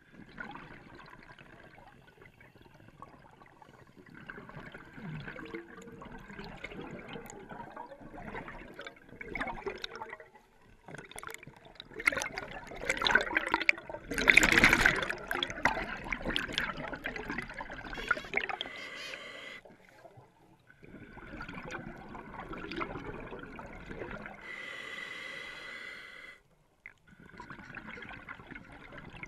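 Scuba diver breathing underwater through a regulator: hissing inhalations alternating with gurgling bursts of exhaled bubbles, the loudest bubble stretch in the middle.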